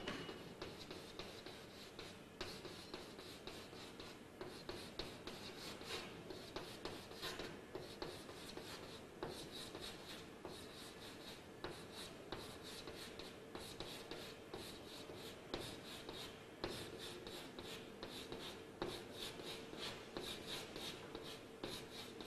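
Chalk on a blackboard in quick short strokes, tapping and scratching several times a second while rows of fish scales are drawn.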